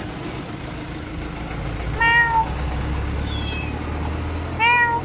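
Cat meowing: two short, high meows about two and a half seconds apart, with a fainter one between them, over a steady low hum.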